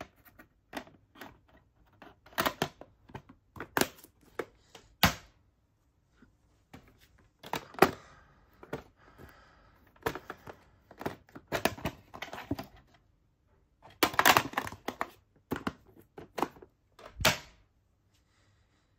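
Hard plastic VHS cassettes and clamshell video cases being handled and set down: an irregular string of clacks and knocks with short gaps between them. The loudest knocks come a little before the middle and near the end, and the sounds stop shortly before the end.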